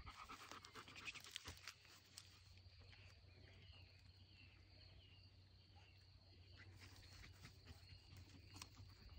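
Near silence: faint outdoor ambience with a few light rustles in grass, mostly in the first couple of seconds.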